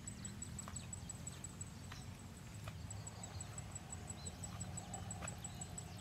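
Faint outdoor ambience: a low rumble, a thin high tone pulsing several times a second, and a few faint ticks.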